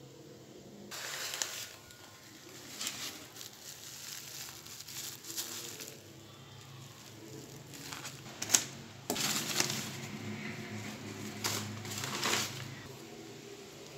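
Plastic wrapping around a seedling's root ball crinkling in irregular bursts as it is handled and peeled back, with one sharp crackle a little past halfway.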